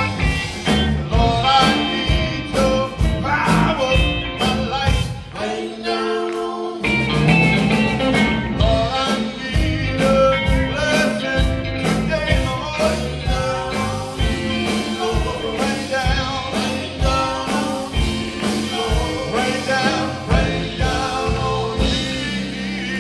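Live gospel band playing, with a drum kit keeping a steady beat, electric guitars, and singing over it. About six seconds in, the drums drop out for about a second, then the full band comes back in.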